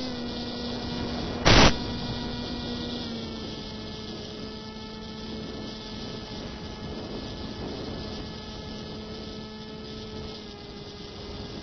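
Steady pitched hum with many overtones from a model airplane's FPV onboard audio, stepping down slightly in pitch about three seconds in and again near the end. A short loud crackle of static comes about a second and a half in.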